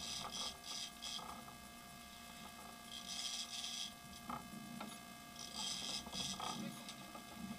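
Steady mechanical hum of a sport-fishing boat's engine, with clusters of short, high, raspy bursts about every two to three seconds.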